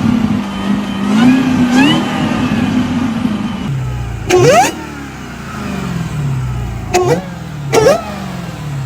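Supercharged car engines revving, the supercharger whine rising and falling with engine speed. A different engine follows a few seconds in, blipped three times in short, sharp, loud rises, its whine sliding back down as the revs drop between blips.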